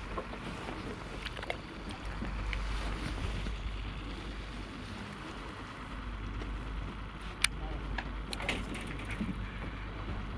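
Steady outdoor wind and sea noise with a constant low rumble, broken by a few short clicks; the loudest is a sharp click about seven and a half seconds in.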